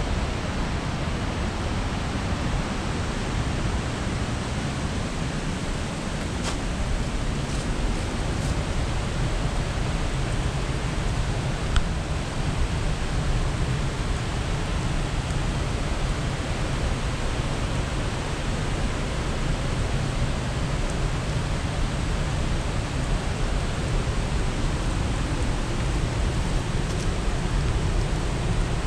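Steady rush of a fast-flowing rocky creek, with a few faint clicks and one sharper click about twelve seconds in.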